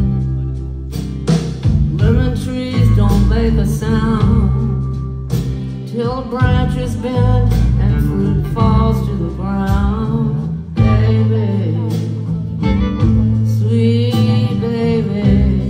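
Live band music in a slow country-blues style, heard through the room from the audience: acoustic guitar and bass with a wavering melodic lead line, loud and continuous.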